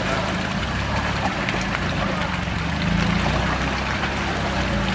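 A 4x4 SUV's engine running low and steady as the vehicle wades through a muddy forest puddle, with water splashing and trickling around the tyres.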